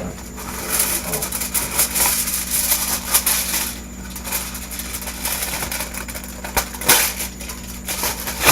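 Irregular crinkling and crackling of something being handled and scrunched, over a steady low hum.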